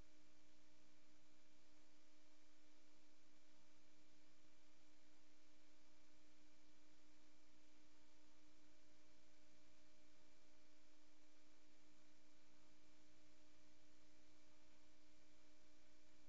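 Faint steady electrical hum and hiss from an idle VCR line output with no tape signal, a steady low tone over a soft hiss.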